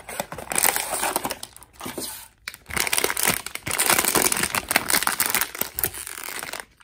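Cardboard blind box being pulled open, then the foil bag inside crinkling and crackling as it is drawn out and handled, after a short lull about two and a half seconds in.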